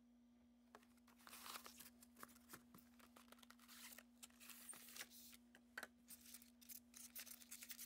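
Faint rustling and clicking of a clear plastic clamshell package and styrofoam insert being handled as a model locomotive is taken out of its box, over a steady low hum.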